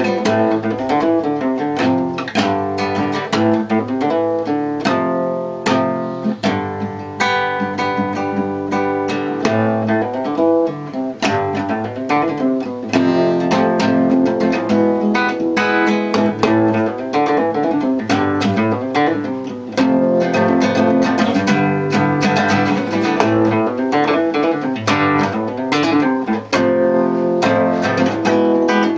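Nylon-string classical guitar played solo, a continuous run of plucked notes and struck chords with no pauses.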